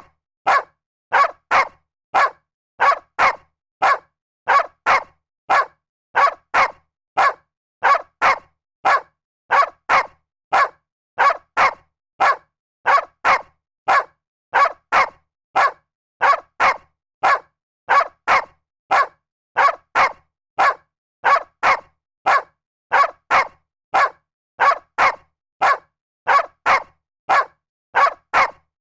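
A dog barking in a steady, even rhythm, about two short barks a second, with clean silence between the barks.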